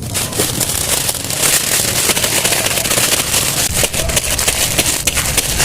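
Dry instant noodles being crushed and crunched raw, a dense, continuous crackling of brittle noodle pieces close to the microphone.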